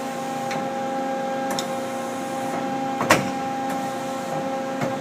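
Hydraulic tailstock of a 1997 Mazak Quick Turn 20 CNC lathe traversing, over the steady multi-tone hum of the running machine. A sharp click comes about three seconds in.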